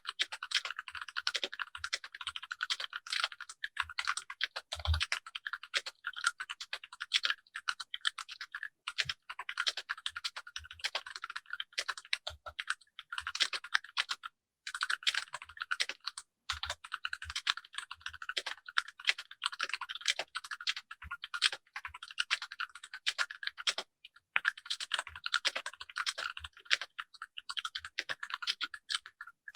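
Typing on a Keychron K6 compact mechanical keyboard resting on a desk mat: a rapid, continuous patter of key clicks, with a brief pause about halfway through.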